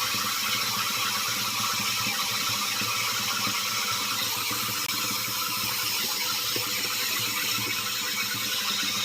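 Steady blast of compressed air from an air compressor blowing into a clogged furnace condensate drain line to clear out the gunk, a continuous hiss with a faint low hum under it.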